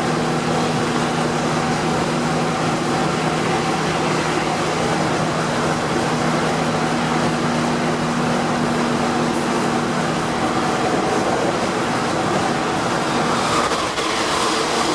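Interior of a Berlin S-Bahn class 480 electric train with its original GTO traction electronics, running between stations: a loud running noise with several steady humming tones from the traction equipment that fade out about ten seconds in, and a brighter hiss toward the end.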